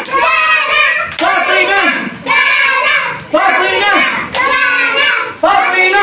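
Group of children chanting two names over and over in a rhythmic sing-song, a phrase about every second, with hand clapping throughout.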